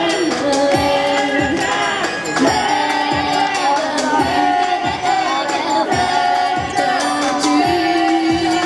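Upbeat Japanese idol-pop song over PA speakers, with a girl's voice singing into a handheld microphone over a steady kick-drum beat of about two thumps a second.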